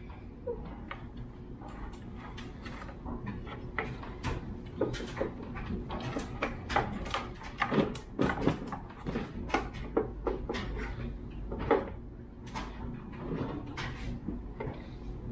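Scattered clicks, knocks and scraping as a cast aluminium valve cover is worked free of the 2ZZ engine's cylinder head and lifted out, with a sharper knock a little past the middle, over a steady low hum.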